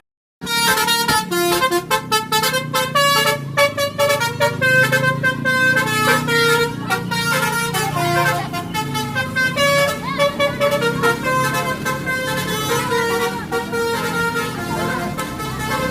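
Basuri telolet horn, a multi-tone musical bus air horn, playing a tune: loud held notes that change pitch in steps, several tones sounding together. The tune starts after a brief silent break at the very start.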